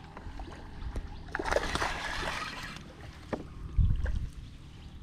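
Hooked bass splashing at the water's surface as it is reeled up to the boat, with a few sharp clicks and a low thump about four seconds in.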